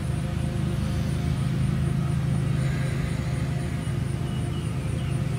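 Steady low mechanical rumble and hum, like a running motor or road traffic, holding level throughout.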